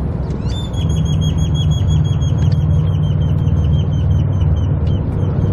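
A bird calling a fast, even series of short high chirps, about six a second, over a steady low rumble of road traffic.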